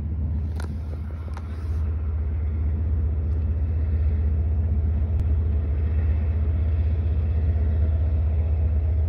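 Diesel locomotive engine rumbling steadily with a deep hum that grows a little louder.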